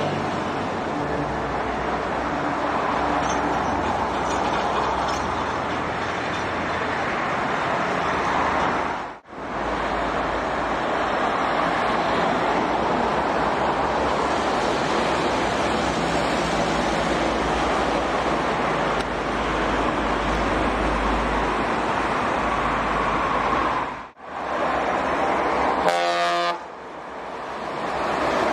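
Heavy diesel trucks driving past on a highway, a steady rush of engine drone and tyre noise. About two seconds before the end a short vehicle horn honks.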